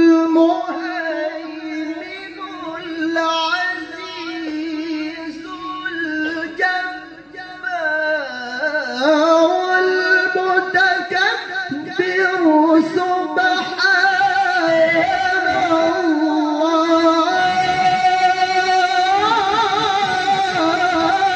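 A male qari reciting the Quran in the melodic tilawah style into a microphone, holding long ornamented notes with heavy vibrato. The voice slides down about eight seconds in, then climbs to long, high held notes that waver to the end.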